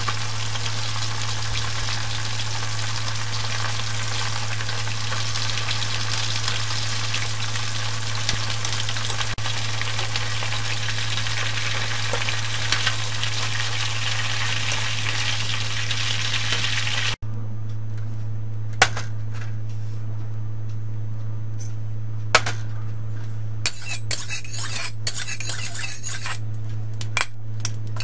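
Chicken pieces deep-frying in a pan of hot oil until golden brown: a loud, dense, steady sizzle of bubbling oil. About two-thirds of the way through, the sizzle cuts off abruptly, leaving a steady low hum and a few sharp metal clinks. Near the end come short bursts of sizzling and clinking at the wok.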